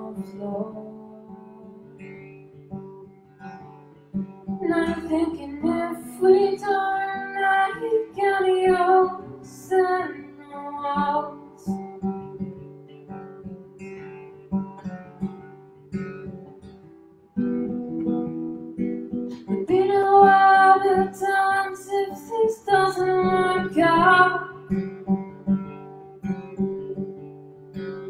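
Acoustic guitar strummed, with a woman singing over it in two phrases: one about five seconds in and another about twenty seconds in. The guitar plays more softly between them and comes back louder shortly before the second phrase.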